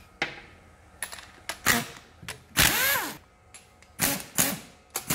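A handheld pneumatic air tool firing in several short bursts as bolts are undone on the cylinder head of a 4-litre SOHC Ford Falcon six. The longest burst, about half a second midway, has a whine that spins up and falls away, and a last burst near the end winds down.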